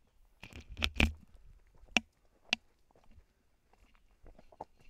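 A hiker's footsteps on a trail: a quick run of scuffs and sharp knocks about half a second to a second in, two more single knocks a second and a half later, then fainter steps near the end.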